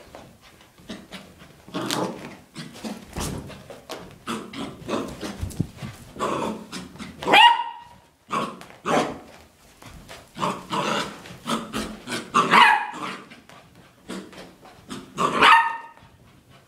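A puppy barking and yapping in excited play, a string of short sharp barks with three louder, higher ones spread through, each dropping in pitch at its end.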